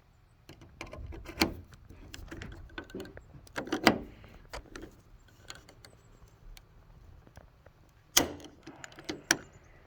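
Scattered clicks, taps and clinks of small hardware being handled and fitted by hand, with sharper knocks about a second and a half in, near four seconds and about eight seconds in.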